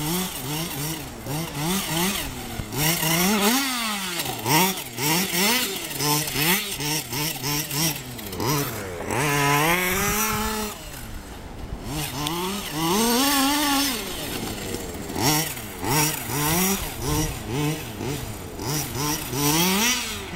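Radio-controlled off-road buggy's small two-stroke engine revving up and down again and again as it is driven hard, with a loud close pass at high revs about ten seconds in.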